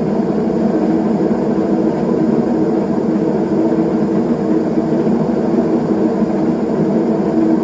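Zanussi washing machine running loudly, a steady drone with one held tone through it and no let-up. It is the noise of a washer that has grown louder with use, which the owner puts down to a worn drive belt.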